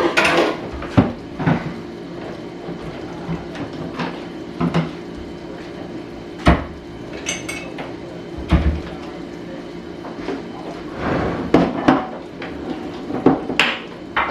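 Dishes, pans and cutlery clinking and knocking in irregular clatters during kitchen cleanup, over a steady low hum.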